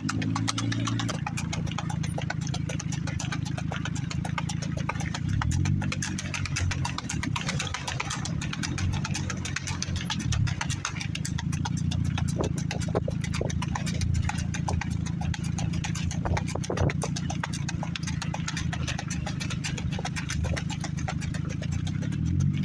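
Quick, even hoofbeats of a keg-shod stallion singlefooting on a gravel road, the four-beat gait of the breed. Under them runs the low, steady hum of a car engine keeping pace alongside, its pitch shifting now and then.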